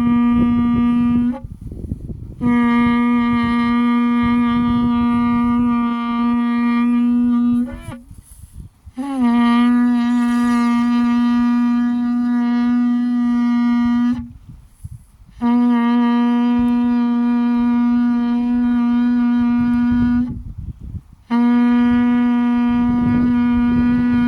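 A shofar blown in a string of long, steady blasts of about five seconds each, with short pauses for breath in between. One blast is already sounding at the start and four more follow. One note bends up in pitch as it starts, and one bends up as it ends.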